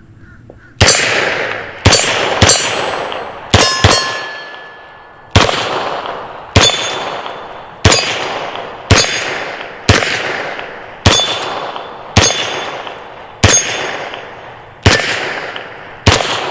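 Beretta M9 9mm pistol fired about fifteen times at a steady pace, roughly one shot a second, with a quick pair near the start. Many of the shots are followed by the ringing of struck steel targets.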